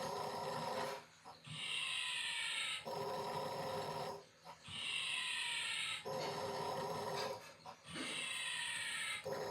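Snoring, three snores in a row about three seconds apart. Each is a buzzing snore followed by a hissing whistle that falls in pitch.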